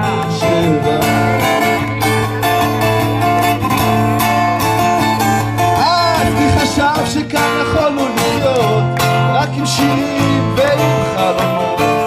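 Acoustic guitar strummed in a steady chord pattern, an instrumental passage of a live song with no words sung.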